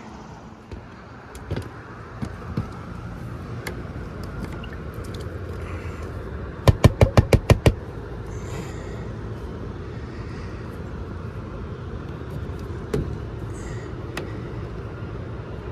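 Steady low hum of rooftop air-conditioning units running, with scattered clicks and knocks as a sheet-metal access panel is handled and refitted. About seven seconds in comes a quick run of about eight sharp knocks in a second.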